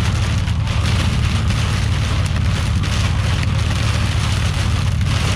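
Rain, with some light hail, hitting the truck in a steady downpour over a constant low rumble from the truck.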